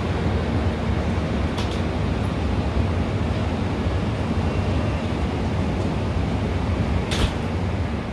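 Steady airport-apron ambience heard from an open-air terrace: a low, unsteady rumble with hiss over it, with two short clicks, one about a second and a half in and a louder one near the end.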